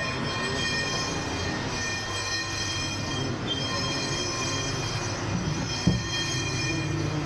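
Car brake disc being skimmed on a lathe: the cutting tool squeals steadily on the cast-iron disc, several high ringing tones held over the lathe motor's low hum. A short knock comes about six seconds in.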